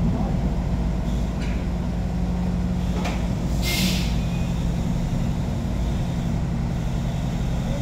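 Heavy diesel engines of a truck and a truck crane idling steadily, with a couple of light clicks and a short hiss about three and a half seconds in.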